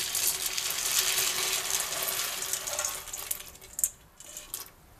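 Dried carioca beans pouring from a metal bowl into a pressure cooker of boiling water: a dense rattling patter of beans sliding and dropping. The patter thins out about three seconds in, with a few last beans falling near the end.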